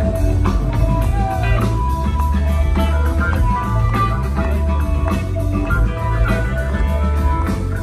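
Live rock band playing an instrumental jam: electric guitar lead with bent notes over electric guitars, bass and drum kit.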